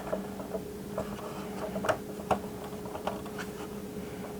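Light, scattered clicks and taps of the hard plastic parts of a 1988 G.I. Joe Rolling Thunder toy being handled and worked down a guide channel, the sharpest pair about two seconds in, over a steady low hum.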